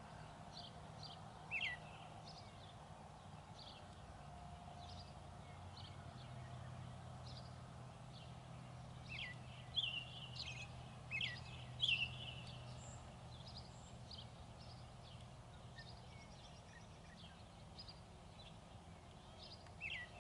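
Songbirds chirping and calling faintly in short scattered notes, a few louder ones sliding downward in pitch, over a steady low background hum.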